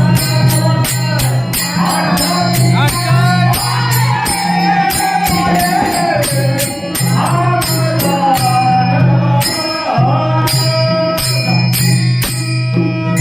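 Devotional bharud singing: a voice sings a wavering melody over harmonium, with a metallic jingling percussion beat keeping steady time. The voice stops shortly before the end, leaving the harmonium and jingling beat.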